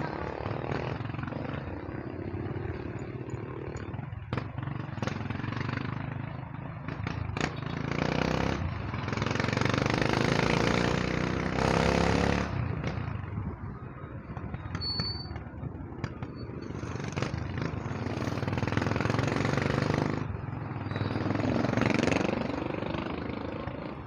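Small motorcycle engine running steadily while riding through street traffic, growing louder for a few seconds about a third of the way in and again near the end as the engine note rises and falls.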